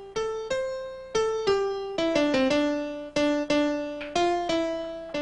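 Music: a piano melody, single notes struck one after another, each ringing and fading.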